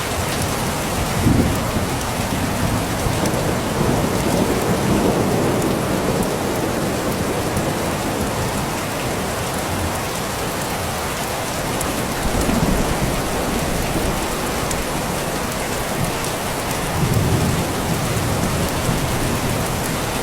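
Steady rain falling on surfaces, with low rumbles of distant thunder swelling up several times: about a second in, in the first third, and twice more in the second half.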